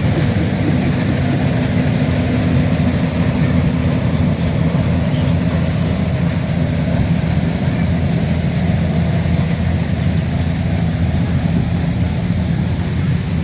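An engine running steadily at an even speed, a low hum that holds constant throughout.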